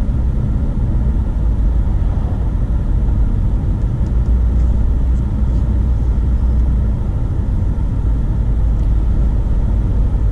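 Steady road and engine noise of a car driving on a highway, a constant low rumble with no change in pace.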